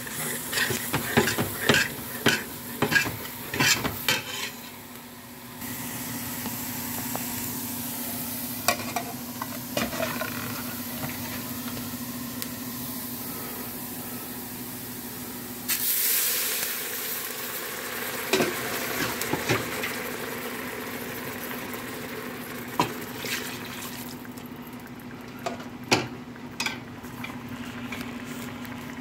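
Metal spoon scraping and clacking against a stainless steel pot while flour is stirred into sizzling onions and fat to make a roux, the clacks coming quickly at first. About halfway through, a sudden burst of sizzling as ladled broth hits the hot pan, followed by occasional spoon knocks, over a steady low hum.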